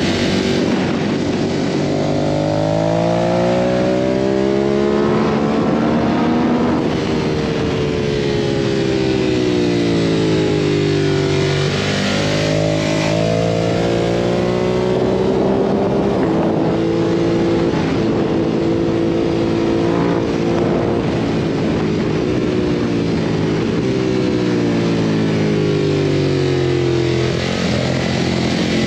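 2017 Ducati Monster 1200S's L-twin engine at track speed, its pitch climbing as it accelerates and falling away as it slows for corners, several times over, with steady wind rush on the microphone.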